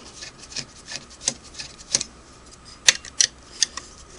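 A screwdriver at work on the screws of a Singer 401A sewing machine's metal arm cover: scattered sharp small metal clicks and taps, the loudest three coming close together around three seconds in.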